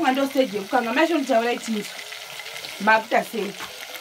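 Food frying with a steady faint sizzle, under a voice talking in two short phrases that is louder than the frying.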